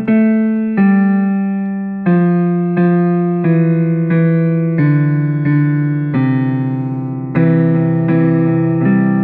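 Electric piano music: slow chords, each struck and left to fade, changing about once a second, with a wavering tremolo on the sustained notes.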